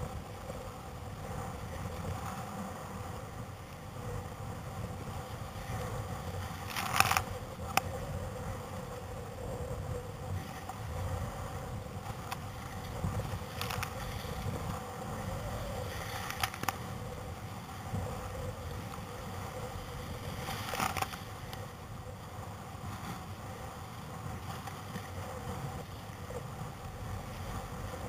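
Rough surf and breaking waves rushing and splashing around a kayak: a constant churning rumble of water, broken by sharp louder splashes about 7, 14, 16 and 21 seconds in.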